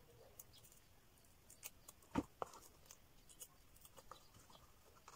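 Small scissors trimming the overhanging end of a hook-and-loop fastener strip: a few faint, scattered snips and clicks, the clearest about two seconds in.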